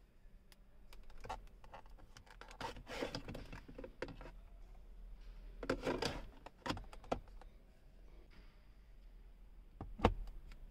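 Quiet plastic clicks, taps and rustling as a car's centre console trim and storage are handled by hand, ending in a sharp knock near the end as the padded armrest lid is shut.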